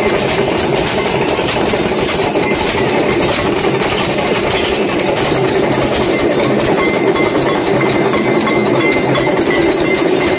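Brass hand bell (ghanti) ringing during a temple aarti, over a loud, continuous rapid clatter of percussion with a steady ringing tone.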